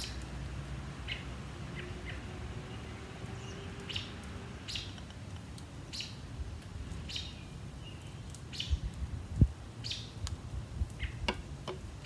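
A songbird chirping repeatedly: short high chirps about every second. There are a few low knocks about three-quarters through, the loudest a single thump.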